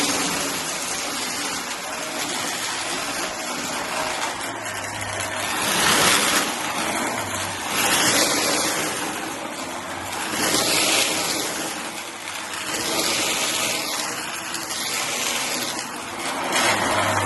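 Shark vacuum cleaner running steadily while it picks up cardboard pieces. The sound swells and eases every couple of seconds as the vacuum is pushed back and forth.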